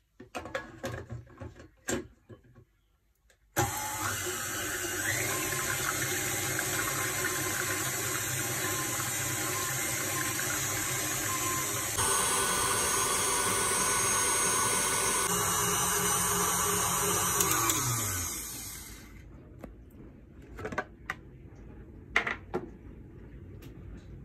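KitchenAid stand mixer whipping cream with its wire whisk. A few light clicks and knocks come before the motor starts about three and a half seconds in. The motor runs steadily, then winds down with falling pitch and stops, followed by a few soft clicks.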